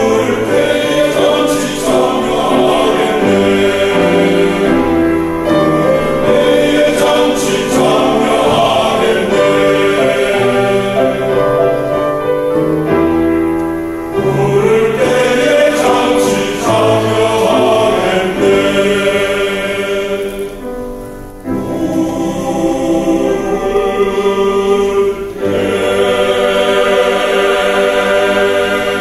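Small vocal ensemble singing a gospel hymn in several-part harmony, with a short pause about three quarters of the way through.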